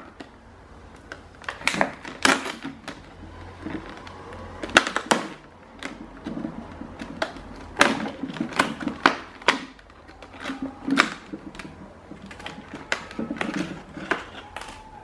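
Rigid clear plastic blister packaging being pried open with a flat-head screwdriver: irregular sharp clicks, snaps and crackles of the plastic as the clips are forced apart.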